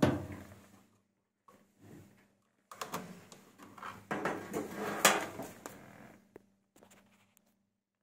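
Candy washing machine drum turned and rocked by hand at its rear pulley, making bursts of rumbling and scraping with handling knocks, loudest about five seconds in; the drum bearings are humming from wear.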